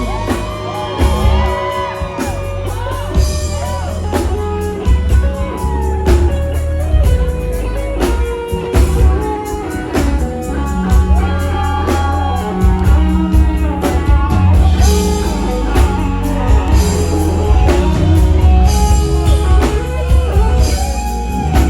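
Live band music featuring a guitar solo, its notes bending in pitch, over a steady bass line and drums.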